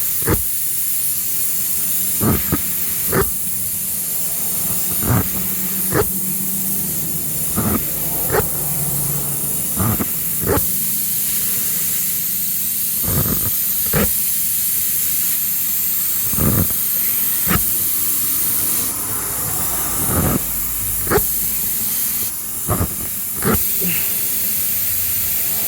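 Air hissing steadily out of a punctured car tyre through the nail hole as it is reamed for a plug, with short sharp clicks or knocks every second or two from the tool working in the hole.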